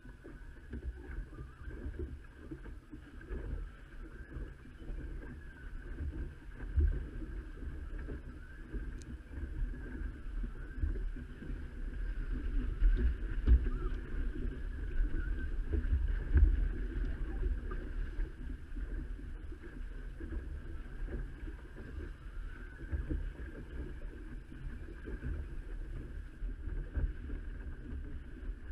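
Water rushing and splashing along the hull of a Shrimper 19 sailing boat under way, with wind blowing on the microphone. The level rises and falls unevenly with the gusts and waves.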